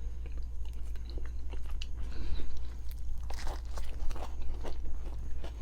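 A person chewing and biting food, with small wet mouth clicks and smacks, louder and denser about three and a half seconds in.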